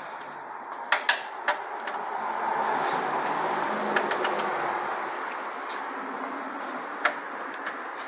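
Socket and long breaker bar working a 17 mm bolt under a car: a few sharp metal clicks and clinks, over a steady workshop background noise that swells for a few seconds in the middle.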